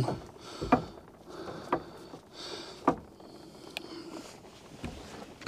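Copper refrigerant lineset being bent by hand: quiet handling and rubbing noise, with a few light clicks and knocks about a second apart as the tubing shifts against the boards.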